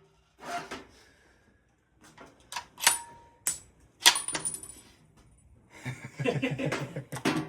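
Sharp metallic clicks and clatter of a rifle being handled, loudest about four seconds in, followed by low muttering voices near the end.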